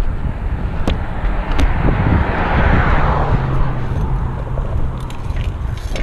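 Wind buffeting the microphone and BMX tyres rolling on asphalt during a ride, with two sharp knocks about a second in and a swell of rushing noise around the middle.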